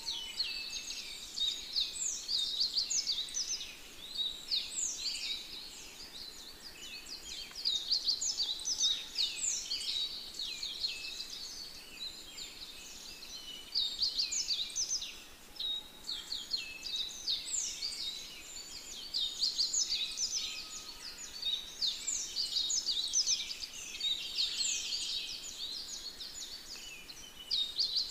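Many small birds chirping together in a dense chorus of quick, high, overlapping chirps that rise and fall in loudness.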